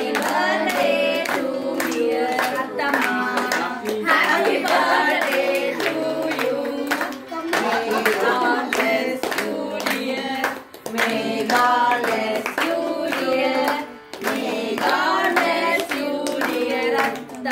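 A group of women singing a song together while clapping their hands along.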